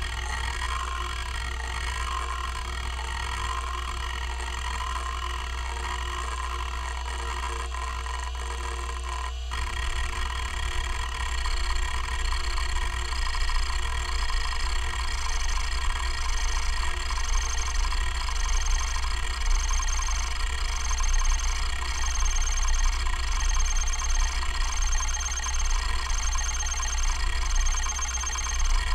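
KALOK KL3100 105 MB stepper-motor hard drive seeking. The head stepper buzzes in a tone that rises and falls about once a second as the heads sweep back and forth across the platters, over a quiet spindle hum. About ten seconds in, the seek pattern changes: the stepping grows louder and busier, and a high whistle starts to come in and out about once a second.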